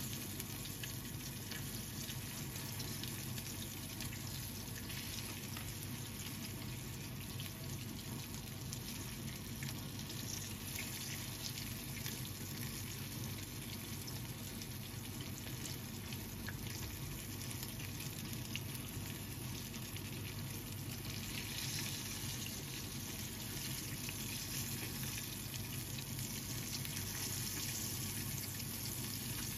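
Chicken drumstick karaage deep-frying in oil in a frying pan, with a steady sizzle. The sizzle grows brighter about two-thirds of the way through.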